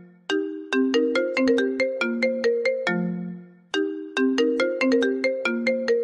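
iPhone ringtone playing: a melodic phrase of quick, struck, mallet-like notes that ends on a long low note and repeats about every three and a half seconds, twice here.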